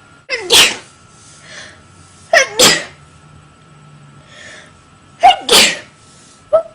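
A woman sneezing three times in a row, about two and a half seconds apart, each a voiced 'ah' rising into a sharp burst of breath, with quieter breaths in between and a short voiced catch of breath near the end.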